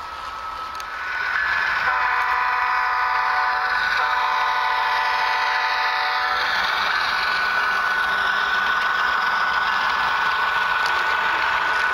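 Sound-equipped HO scale model diesel locomotive blowing a multi-chime air horn, two blasts of about two seconds each, with a click between them. Then a steady running sound with a thin whine as the freight train passes.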